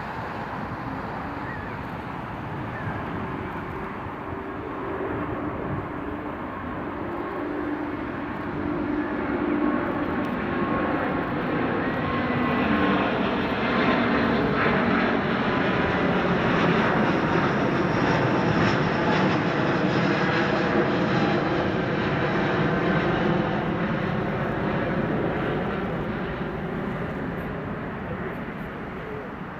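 Airbus A350-900 jet with Rolls-Royce Trent XWB engines flying past. The engine noise builds to a peak about halfway through and then fades away.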